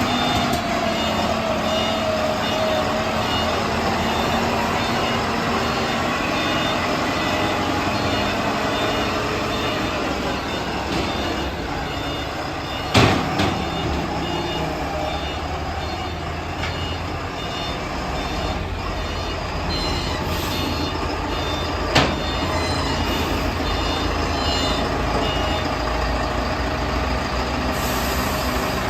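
Self-loading concrete mixer's engine running steadily, with two sharp knocks, one about halfway through and another some seconds later.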